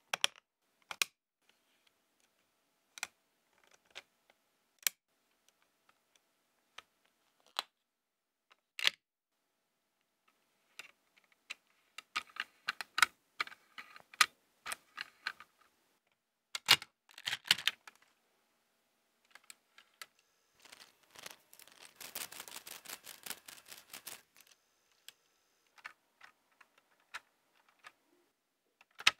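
Lego Technic plastic parts clicking and snapping together as a model is built by hand: scattered single clicks, then quicker runs of clicks and a longer stretch of clattering about two thirds of the way through.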